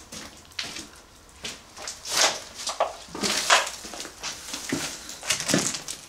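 Footsteps crunching over rubble and scattered debris, irregular steps with a few louder crunches in the middle.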